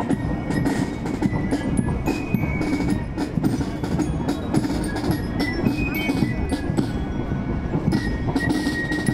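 Marching band playing outdoors: drums beating a march, with the bright ringing notes of a bell lyre (marching glockenspiel) over them.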